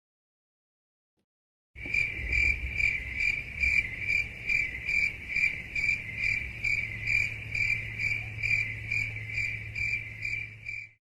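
After nearly two seconds of dead silence, a cricket chirping sound effect starts, a steady run of chirps about two to three a second over a low hum. It is the comedy 'crickets' gag for an awkward silence.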